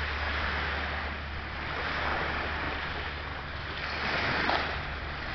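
Steady rushing of wind on the microphone mixed with small waves washing onto a shingle beach. The noise swells a little about two seconds in and again around four seconds.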